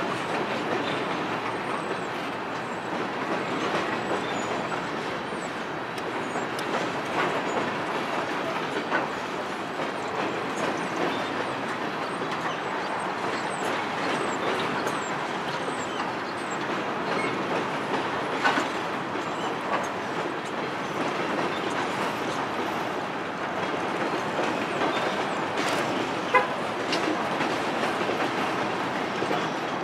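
Empty steel coal hopper cars rolling past, a steady rumble and clatter of wheels on the rails with a few sharp clanks, the loudest near the end.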